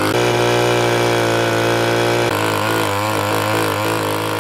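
Small petrol engine of a handheld earth auger running at high speed as it drills a post hole. Its note is steady at first, then wavers up and down from about halfway as the bit works into the soil.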